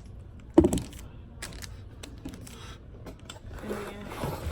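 Handling noises as drinks and takeout containers are set down and moved about: one sharp knock about half a second in, then lighter clicks and rustling.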